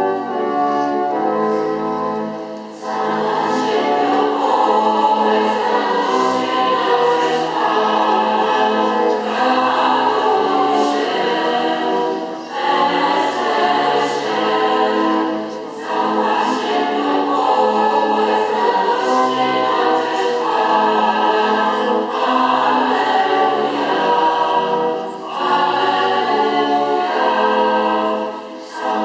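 Choir singing a Polish sacred hymn in long sustained phrases, broken by short pauses between phrases.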